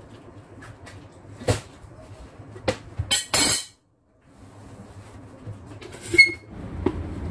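Kitchen handling sounds over a low steady hum: a few light knocks and clicks on the countertop, a short rustle about three seconds in, and a ringing clink of a glass blender jar being picked up about six seconds in.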